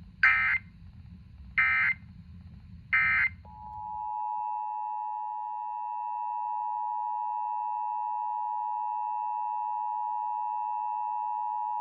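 Emergency Alert System test tones: three short warbling SAME digital data bursts about a second and a half apart, then the steady two-tone EAS attention signal, held for about eight seconds.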